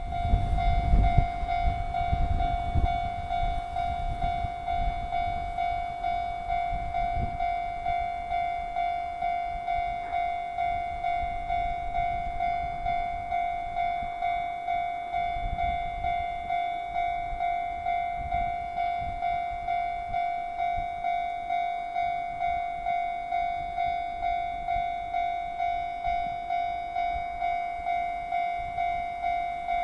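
Japanese railway level crossing warning bell ringing, a steady, evenly repeated electronic ding that signals the crossing is closing for an approaching train. A low rumble underlies the first few seconds.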